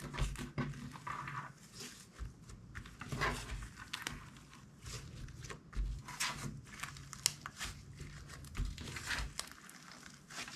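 Slime being squished and stretched by hand: irregular sticky crackles and pops, with soft low thumps as it is pressed and folded.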